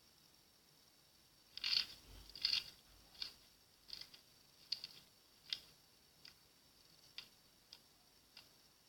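Slime being squeezed, popping air pockets in a string of about ten short crackly pops, roughly one every 0.7 seconds. The first two pops are the loudest, and they grow softer after that.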